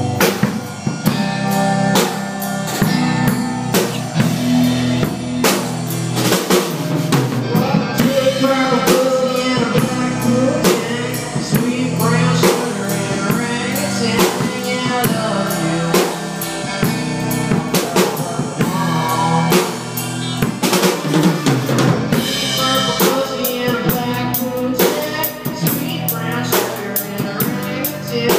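Live band playing: a drum kit with frequent snare, bass drum and cymbal hits over electric guitar, continuous throughout.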